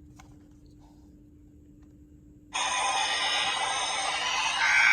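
CSM OOO Driver toy belt playing a sound effect through its built-in speaker. A bright, steady, many-layered sound starts suddenly about halfway in and grows a little louder near the end, after a faint first half.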